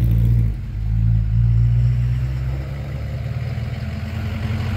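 A classic car's engine running slowly with a deep exhaust rumble. It eases off briefly about half a second in, then picks up again.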